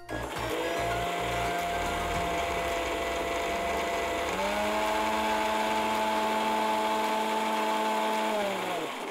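Electric mixer grinder running, grinding coconut chutney ingredients with a little water into a paste. The motor whine steps up to a higher speed about four seconds in, then falls in pitch as the motor winds down near the end.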